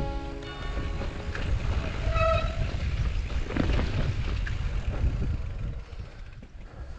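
Wind buffeting an action camera's microphone as a mountain bike rolls over grassy, stony ground, with scattered knocks and rattles from the bike. A brief high tone sounds about two seconds in, and the noise eases off near the end.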